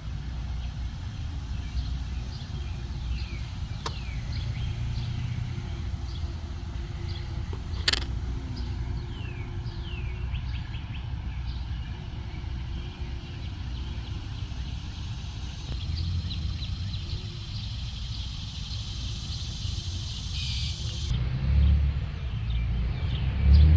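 Outdoor garden ambience: a steady low rumble with many short, quick bird chirps over it and a couple of sharp clicks.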